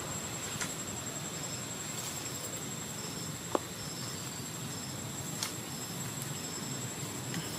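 Outdoor woodland ambience: a steady high-pitched insect whine with faint short chirps repeating about once a second over an even hiss. A single sharp click about three and a half seconds in.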